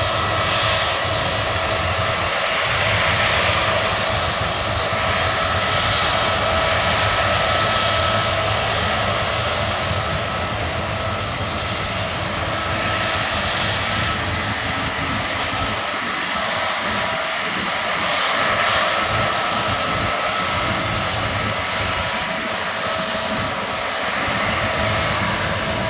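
Case combine harvester running steadily while harvesting barley: a constant engine and machinery drone with a steady whine, swelling a little every few seconds.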